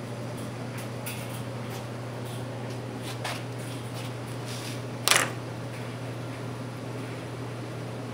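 Burning toilet paper crackling with scattered small pops, the sharpest about five seconds in, over a steady low hum.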